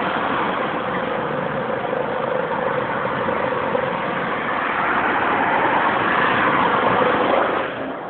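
Loud, steady mechanical droning with a constant hum running through it, swelling a little in the last few seconds, then dropping off sharply just before the end.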